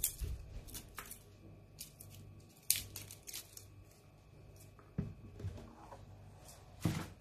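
Small knife picking and scraping the dry papery skin off a garlic clove: scattered light clicks and crackles of the peel tearing away, with a sharper snap a little under three seconds in. Near the end, a louder rustle and knock as the placemat with the peels is lifted.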